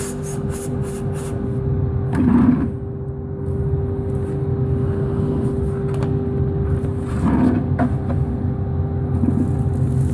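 Workshop dust extraction unit running with a steady hum, with a short rushing swell about two seconds in and again about seven seconds in.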